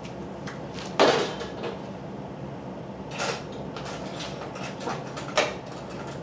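Kitchen things being handled: a few sharp knocks and clatters, the loudest about a second in, over a steady low hum.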